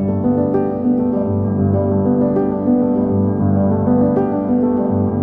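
Background piano music: a steady flow of sustained notes and chords.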